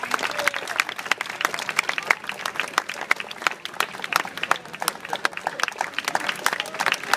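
Crowd applauding, with one person clapping close by.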